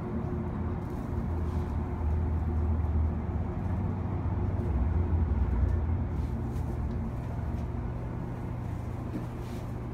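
Elevator in the sombrero observation tower running: a steady low machine hum, with two swells of deeper rumbling in the first half.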